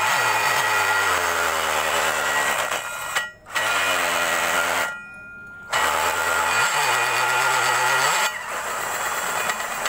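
Cordless battery drill spinning a conical grinding stone against the edge of a drilled hole in a steel rail, chamfering it. The motor's whine climbs in pitch each time it spins up, and it stops and restarts twice, about a third of the way in and around the middle.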